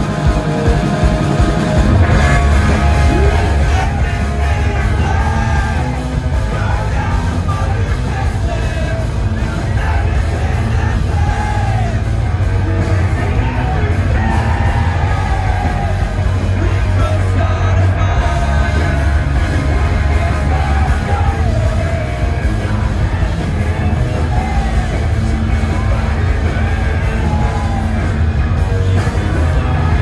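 Live rock band playing loud: distorted electric guitars, bass guitar and a drum kit, with a singer singing and yelling over them.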